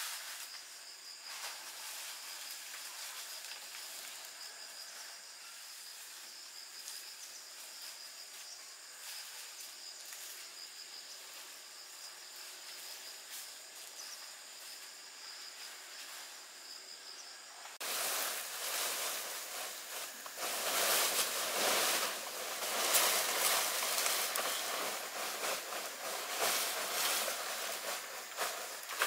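Insects chirring steadily in a high, slightly pulsing tone over a quiet outdoor background. About two-thirds of the way through it cuts abruptly to louder, dense crackling and rustling.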